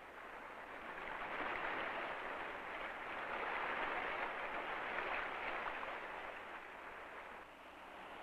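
Rushing water, a steady hiss-like wash that grows over the first couple of seconds, holds, and eases a little near the end.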